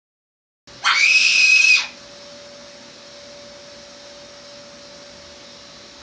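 A single high-pitched squeal lasting about a second, starting just under a second in, over a faint steady hum.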